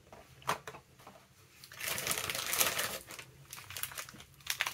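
Small clear plastic packaging crinkling as it is handled and opened, loudest for about a second and a half in the middle, with a light tap about half a second in and scattered small clicks and rustles near the end.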